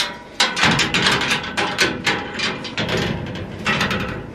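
A dense run of clattering knocks and rattles, starting about half a second in and going on for over three seconds.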